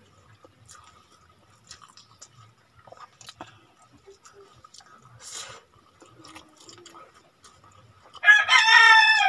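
Faint clicks of eating, then about eight seconds in a rooster starts a loud crow that carries on past the end.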